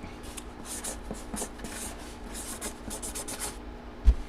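Hands handling a boxed item: a run of short rubbing and scraping strokes, then a single low thump near the end.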